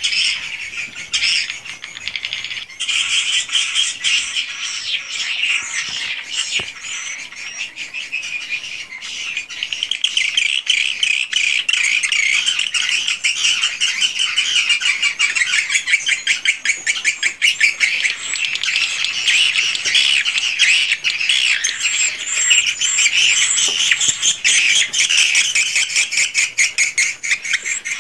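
A dense flock of edible-nest swiftlets calling inside a swiftlet house: many overlapping chirps and rapid clicking, growing louder about a third of the way in.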